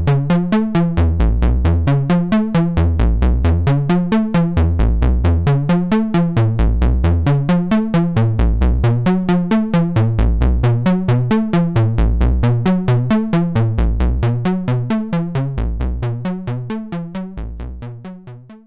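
Eurorack modular synthesizer playing a sequenced jam: a fast, even run of short synth notes over a deep bass thump about once a second. It fades out over the last few seconds.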